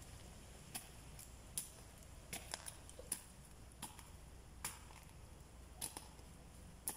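Short, sharp clicks and ticks, about one a second and uneven, from a hand digging tool striking soil and small stones while planting sweet potato cuttings, over a faint steady high hiss.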